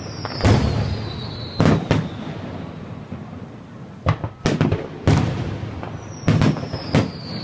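Fireworks shells bursting in a string of booms, one every second or so, each with a low rumbling tail. A thin whistle, falling slowly in pitch, runs over the booms near the start and again near the end.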